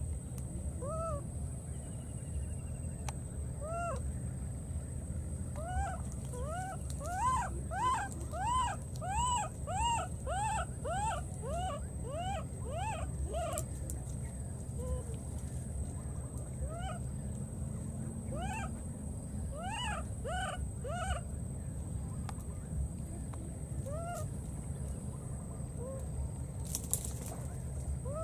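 Baby macaque crying: a run of short calls that rise and fall in pitch, about two a second, loudest and most frequent in the middle, with single calls scattered before and after.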